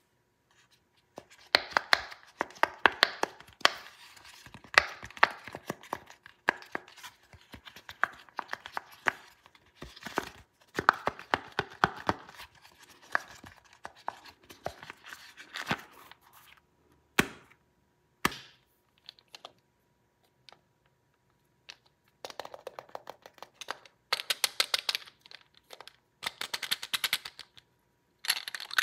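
Fingers pressing through the bubbles of a silicone pop-it fidget toy: quick runs of small pops, several a second, through the first half, then a few scattered pops and a quiet gap. Another run of clicks and taps comes near the end.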